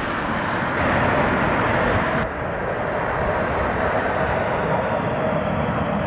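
Jet noise from a landing four-engine Boeing 747 just after touchdown, loudest in the first two seconds, then an abrupt cut about two seconds in to another Boeing 747 on final approach: a steady engine rush with a level whine.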